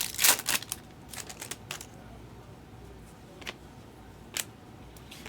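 Chrome trading cards being flicked through by hand: a quick run of sharp clicks in the first second, then a few separate ticks.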